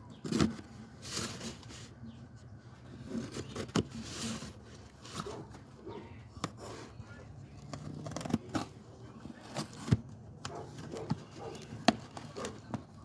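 A cardboard shipping box being opened and unpacked by hand: scraping and rustling of cardboard and packing, with brief tearing hisses and scattered knocks and clicks.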